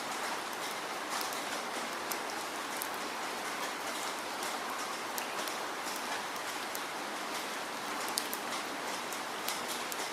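Steady falling rain: an even hiss with many sharp drops ticking on a surface.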